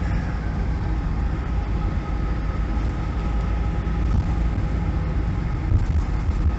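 Driving noise inside a vehicle's cabin: a steady low engine and road rumble with faint steady tones above it.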